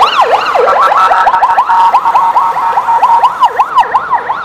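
Police car siren wailing in a fast up-and-down yelp, about four sweeps a second. A steady tone joins it from about a second in until nearly the end.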